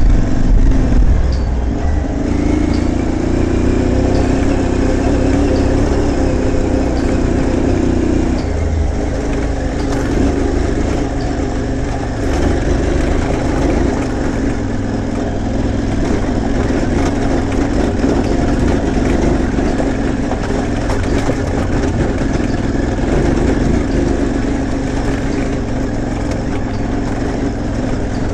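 Aprilia Tuareg 660 parallel-twin motorcycle engine running under way at a fairly steady pitch, its note strongest in the first several seconds and easing a little about eight seconds in.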